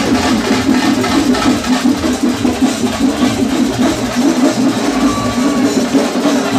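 Loud procession music with fast, continuous drumming.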